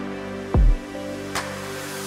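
Background music: held chords over a slow beat, with a deep drum hit about half a second in and a lighter, sharper hit near the end.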